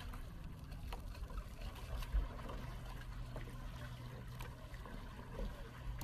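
Faint lapping and trickling water over a low, steady hum that sets in about two seconds in and fades near the end, with a few light ticks.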